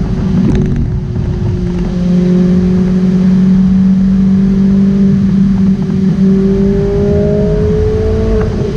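Ferrari 458 Italia's naturally aspirated V8 running at a steady highway cruise, heard from inside the cabin over road and wind noise. Its note dips slightly about a second in and rises gradually over the last few seconds.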